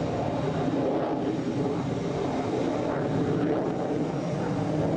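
Jet noise from an Atlas Cheetah, a modernized Mirage III delta-wing fighter, flying past overhead: a steady rushing sound with no sharp breaks.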